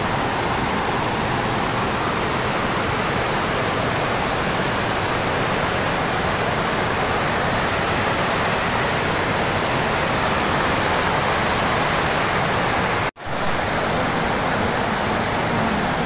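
White water pouring down a hydroelectric dam's spillway, a steady, loud rush with no let-up. The sound cuts out for an instant about thirteen seconds in.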